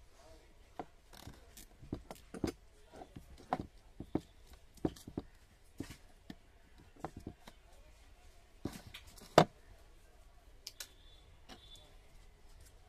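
Irregular clicks and light knocks from hands handling a cooler motor's stator winding and its sleeved lead wires, with one sharper knock about nine seconds in.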